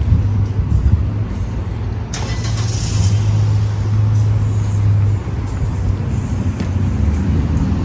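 Car engine idling, a steady low hum, with a brief rustle or scrape about two seconds in.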